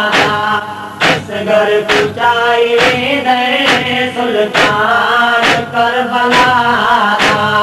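Noha lament music: a wavering melodic line over a sharp, steady beat about once a second.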